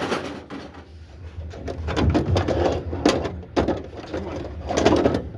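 Scrap metal pieces clanking and clattering irregularly as they are thrown off a load, over a steady low hum.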